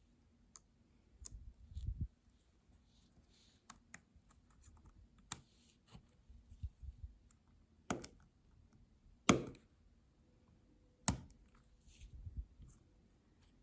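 Keycap being pressed back onto a Lenovo Miix 520 keyboard's scissor hinge and clips: scattered small plastic clicks and taps, with two sharper clicks about nine and eleven seconds in, and a few low handling bumps.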